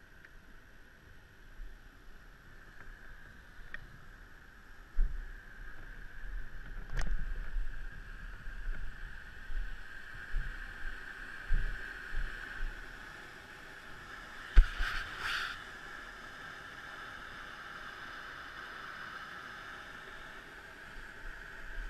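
River rapids and a small waterfall rushing steadily, with low gusts of wind buffeting the microphone and a single sharp knock about two-thirds of the way through.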